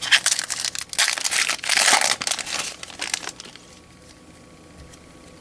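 Baseball card pack wrapper crinkling and tearing as it is ripped open and crumpled, in loud bursts over about three seconds that stop abruptly.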